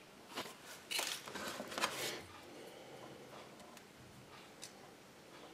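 A paper instruction leaflet rustling and crinkling as it is handled, in a cluster of rustles from about a third of a second to two seconds in, then only faint handling noises.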